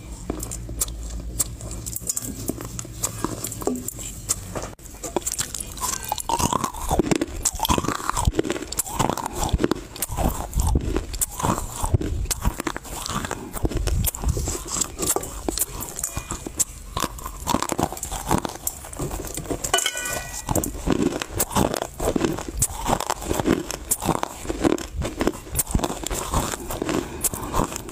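Chewing of dry Chinese loess clay right at a lavalier microphone: dense crackly crunches, becoming louder and more rhythmic, one chewing stroke after another, from about five seconds in.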